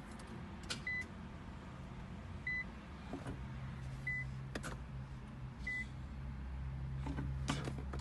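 Inside a 2014 Nissan GT-R with the ignition on, a warning chime beeps four times at even intervals. About three seconds in, a low electric hum starts and grows steadily, with scattered light clicks throughout.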